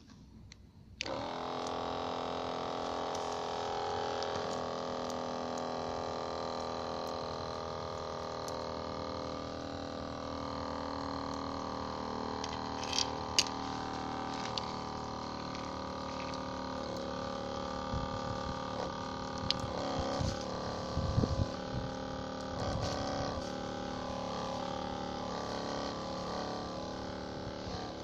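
Maruyama Kiri Taisho rechargeable sprayer's electric pump motor switching on about a second in, then running steadily with a hum while it pumps water. A few clicks and low knocks come in the second half.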